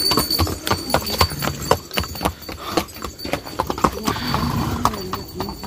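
Horses' hooves clip-clopping on a stone path as a string of ridden horses walks past, with many uneven hoof strikes several times a second.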